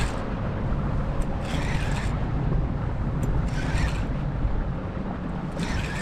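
Wind buffeting an open-air camera microphone: a steady low rumble with short surges of hiss about every two seconds.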